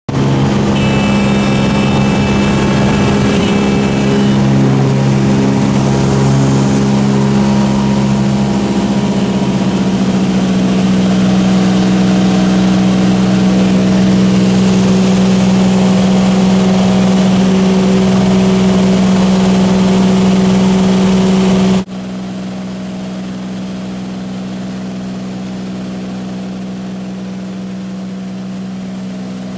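Steady engine drone of a small aircraft in flight, a constant hum with a strong low tone. About 22 seconds in it drops suddenly to a quieter level and carries on steadily.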